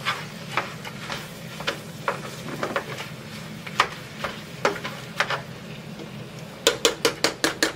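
Plastic meat masher smashing and twisting ground beef in a nonstick frying pan, knocking against the pan bottom at scattered moments, then in a quick run of about six taps a second near the end. The meat sizzles faintly underneath.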